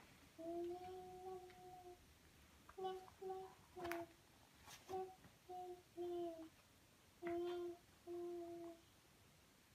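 A small child humming a string of held notes at nearly one pitch: a long first note, then about eight shorter ones. A couple of sharp clicks come about four seconds in.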